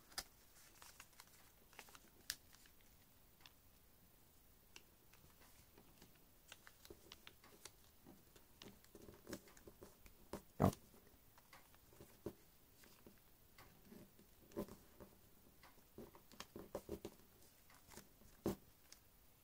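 Origami paper being folded and creased by hand: faint, scattered crinkles and clicks, with a sharper tap about ten and a half seconds in.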